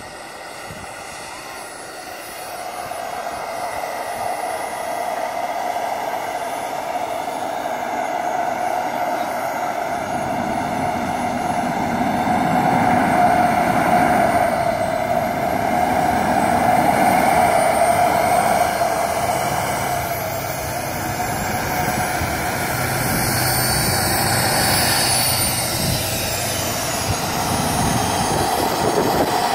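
A radio-controlled model jet's turbine engine running, growing louder over the first dozen seconds, with a high whine that glides up and down in pitch in the second half.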